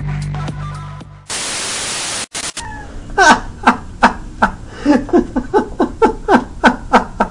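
Electronic music fading out, then about a second of static-like noise, then a man snickering from about three seconds in, in short bursts about three a second.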